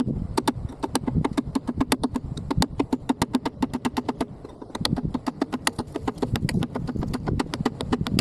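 Hammer blows on a chisel against steel, struck in quick succession at about six a second because the footage is sped up fourfold, with a short break about halfway.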